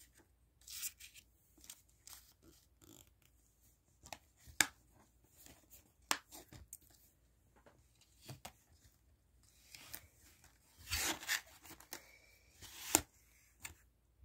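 Plastic Blu-ray case being handled and closed, with scattered sharp clicks and snaps, then a couple of seconds of rustling and scraping near the end as it slides back into its cardboard slipcover.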